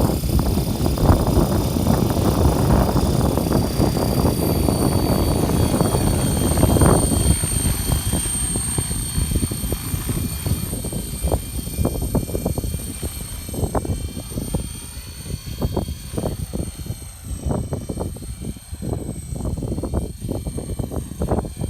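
Radio-controlled helicopter in flight, its motor and rotor giving a steady high whine that rises slightly at first, under wind buffeting the microphone. The wind is heavy for the first several seconds, then comes in gusts.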